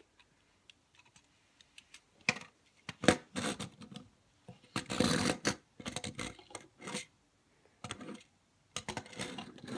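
Small plastic Lego go-kart handled and pushed along a hard tabletop: irregular plastic clicks and rattles with short scraping rolls of its little wheels, starting about two seconds in.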